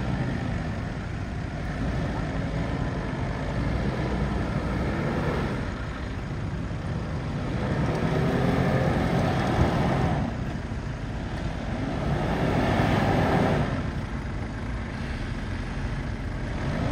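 Ford Endeavour's diesel engine revving in repeated rising and falling surges as it tries to drive out of soft sand on a dune slope: the SUV is bogged, its front wheels dug in.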